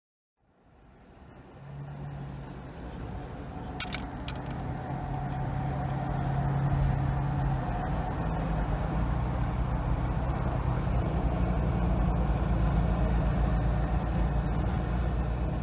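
Toyota FJ Cruiser running, a steady low hum and rumble that fades in and builds over the first few seconds, with a brief metallic jingle about four seconds in.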